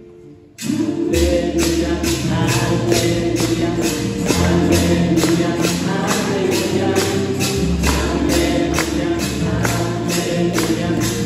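Choir singing to a steady tambourine beat of about two strokes a second, with a bass line underneath; the music comes in suddenly about half a second in.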